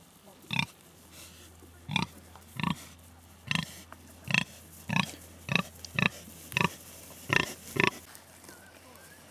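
Pigs giving a series of about eleven short calls, roughly one every two-thirds of a second.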